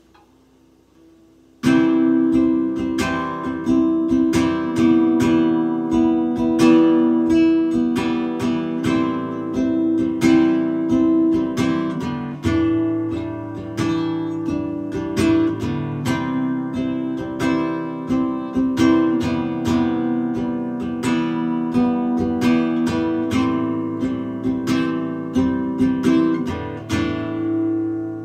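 Steel-string acoustic guitar playing an instrumental intro: repeated strummed chords over ringing notes, starting about two seconds in and letting the last chord ring out near the end.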